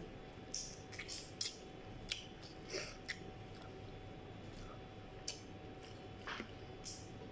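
A person eating crab and rice by hand: scattered short wet smacks and clicks of sucking and chewing crab meat from the shells.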